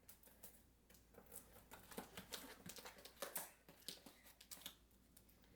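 Faint, irregular rustling and light knocks of cardboard boxes and packing material being handled and rummaged through.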